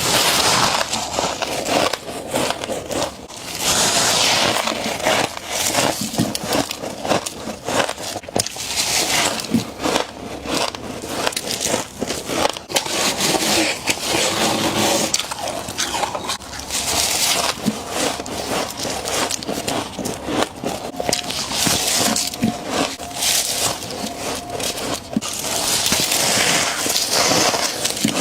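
Freezer frost being bitten and chewed: dense, crackling crunches with hissy scraping swells recurring every four or five seconds.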